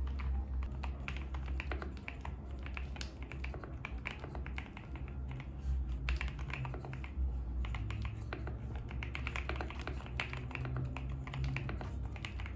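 Typing on a GMK67 mechanical keyboard fitted with freshly lubed Gateron Silver Pro v3 linear switches and PBT keycaps: a fast, irregular run of keystroke clicks.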